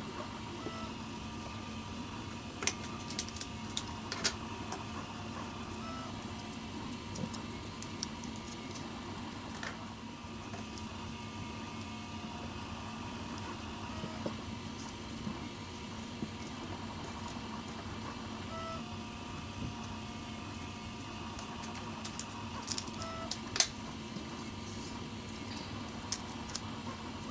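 Steady low hum of room noise, with a few soft clicks and rustles from hands handling a cardboard hand, paper straws and yarn. A few faint short tones come and go.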